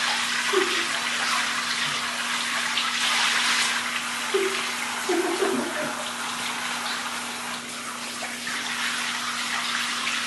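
Water spraying from a handheld shower hose and splashing onto a person in a bathtub, a steady hiss. A few short voice sounds break in about half a second in and again around four to five seconds.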